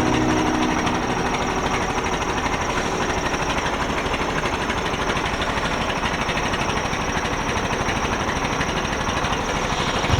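Vehicle engine running steadily with a fast, even pulsing chug.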